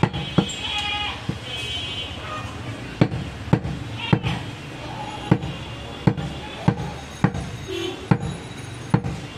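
Heavy butcher's knife chopping mutton on a wooden tree-stump block: about a dozen sharp, loud knocks, roughly one every half second to second, as the blade cuts through meat and bone into the wood.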